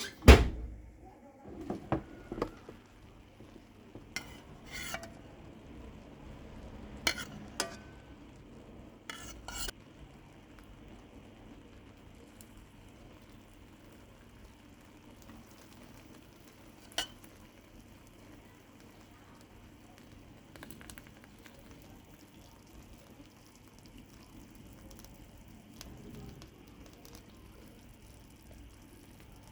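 Hot milföy baklava sizzling as cold syrup soaks into it: a faint, steady hiss. A few sharp clinks and taps of a pan or utensil sound over the first ten seconds.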